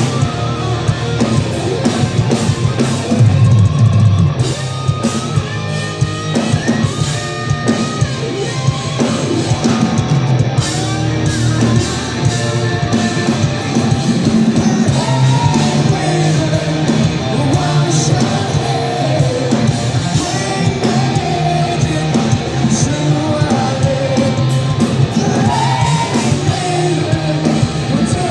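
Hard rock band playing live: distorted electric guitars and a drum kit, with a sung vocal line.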